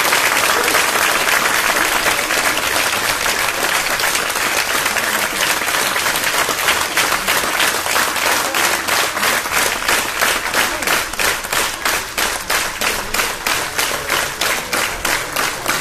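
Audience applauding, the scattered applause turning about halfway through into rhythmic clapping in unison, about three claps a second.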